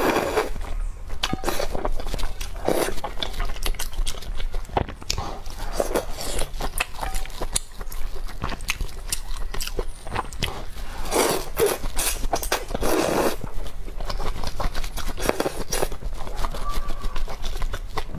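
Close-miked eating of spicy noodle soup: noodles slurped in several louder swells, with many small wet chewing and mouth clicks between them.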